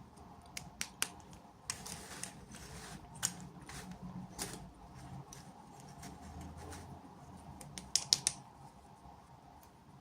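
Small plastic toy pieces and packaging being handled: scattered sharp clicks and brief rustles, with a quick cluster of three louder clicks near the end.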